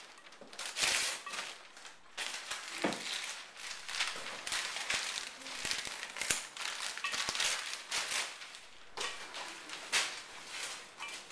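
Wrapping paper being torn off a boxed present by hand, crinkling and ripping in irregular bursts.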